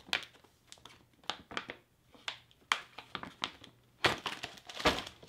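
Green plastic pouch of a Polish LAD-2 ration breakfast crinkling and rustling in irregular sharp crackles as it is opened and handled, busiest about four seconds in.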